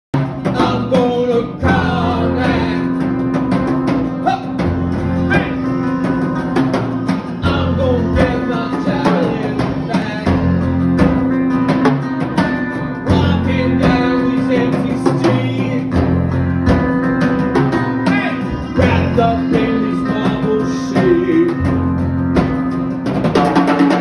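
A small rock band playing live: strummed acoustic guitars, electric bass and a drum kit, over a steady low held note.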